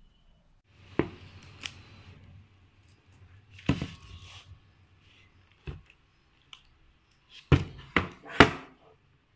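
Hard plastic kitchenware being handled on a table: a plastic salad spinner knocking and clunking as it is turned over and set down, with plastic rustling between the knocks. The loudest clunks come in a quick run of three near the end.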